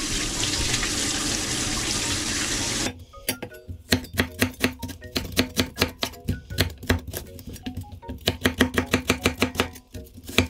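Kitchen faucet running water over a peeled kohlrabi in a stainless steel sink for about three seconds, then stops; a cleaver then chops the kohlrabi into strips on a wooden cutting board in quick, even strokes, about three or four a second.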